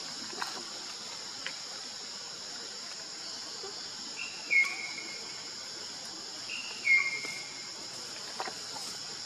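Steady high-pitched insect chorus. Near the middle, two short high calls, each stepping down slightly in pitch, come about two seconds apart and are the loudest sounds.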